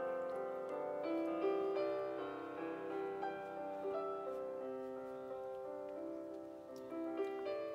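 Background piano music: a gentle melody of sustained notes over soft chords.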